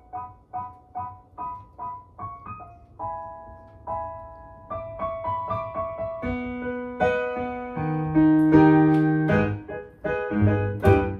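Piano played solo: a soft repeated note pattern, about two to three notes a second, opens into held chords that build louder and lower, loudest a little past the middle, then quicker chords near the end.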